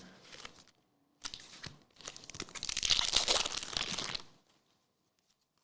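Trading-card pack wrapper being torn open and crinkled: a short rustle about a second in, then about two seconds of continuous crackling crinkle.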